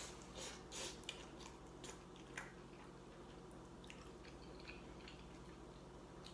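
People eating noodles with chopsticks: soft slurps and chewing, several short ones in the first couple of seconds, then only faint clicks and mouth noises.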